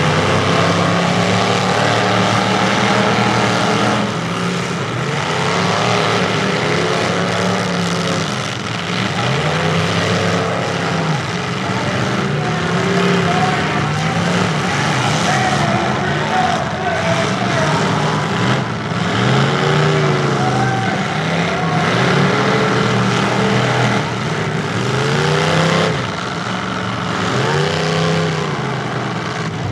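Engines of full-size demolition derby pickup trucks revving hard, the pitch climbing and dropping over and over as they push and ram in the dirt, with a few sharp knocks along the way.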